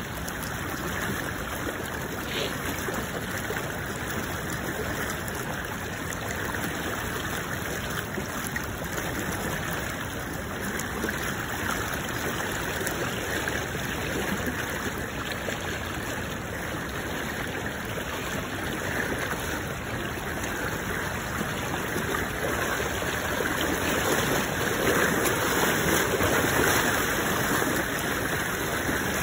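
Fast river current rushing over shallow rapids: a steady wash of water that grows a little louder near the end.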